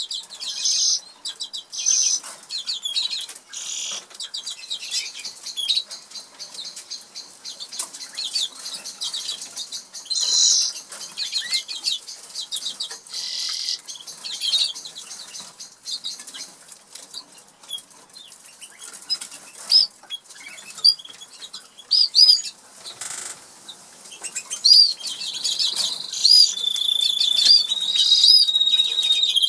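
Norwich canaries in a cage: frequent short clicks and wing flutters as the birds hop about and peck at the seed dish, with scattered high chirps. Near the end a canary sings, repeating quick rising-and-falling notes and then holding steady whistled tones.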